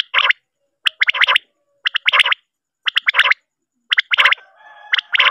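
Male common quail calling its sharp three-note 'wet-my-lips' song, a phrase about once a second, with soft, low growling notes between phrases near the end.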